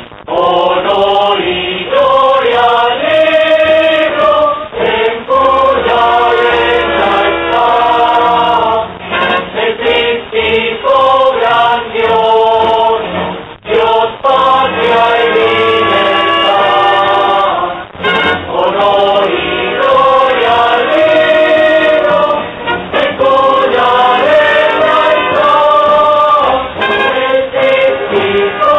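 A choir singing a song with musical backing, many voices together in long phrases, with short breaks about 14 and 18 seconds in.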